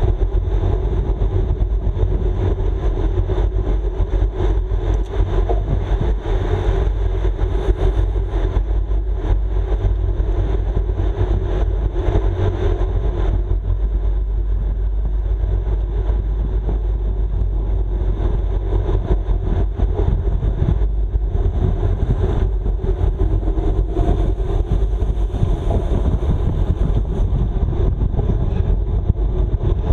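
Wind rushing over the microphone of a road bike racing at speed on a tarmac circuit, mixed with tyre and road noise: a loud, steady rumble with no break.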